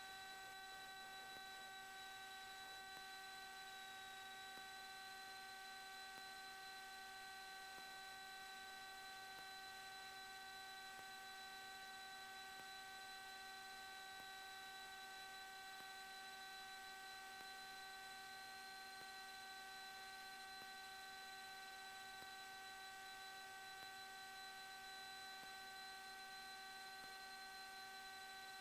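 Faint steady electrical hum and whine on a cockpit intercom audio feed: several steady tones over a light hiss, the highest of them wavering slightly in pitch.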